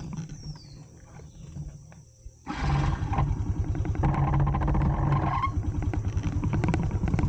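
Motorcycle engine running with a rapid low pulsing, quieter at first, then suddenly much louder about two and a half seconds in.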